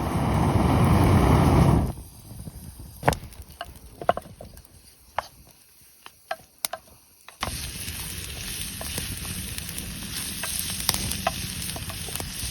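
Food frying in a pan and sizzling loudly, cut off about two seconds in. A quieter stretch of scattered clicks and knocks follows. The sizzling comes back more softly about seven seconds in, with small pops.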